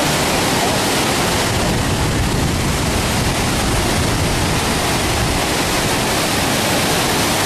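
Flood-swollen water rushing, heard as a loud, steady, unbroken rush.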